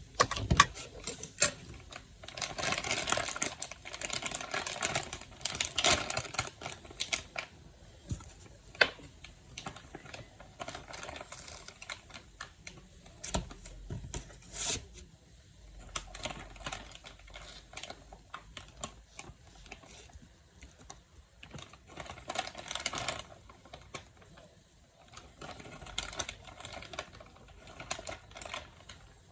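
A spoon scraping and clicking against a dish as broccoli in cheese sauce is spooned out, in quick irregular taps with longer scraping stretches.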